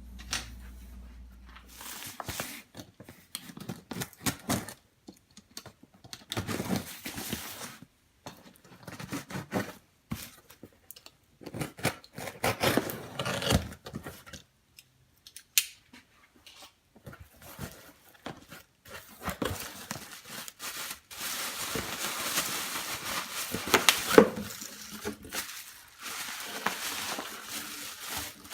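Packaging being handled and torn open by hand: paper, cardboard and plastic tearing, crinkling and rustling in irregular bursts, with a sharper knock about three-quarters of the way through.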